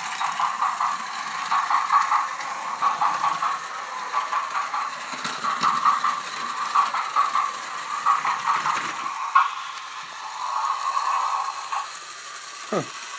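Battery-powered toy Enoden 1000 train running on plastic track, its small motor and gears whirring and rattling with a pulsing rhythm. It goes quieter near the end.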